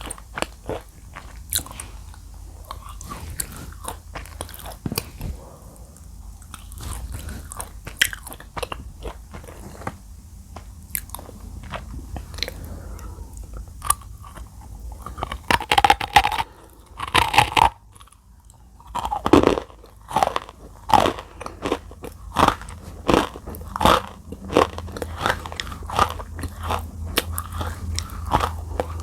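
Close-miked biting and chewing of dry edible clay (Nakumatt clay): small scattered crackles at first, then loud crisp crunches about once a second from around halfway.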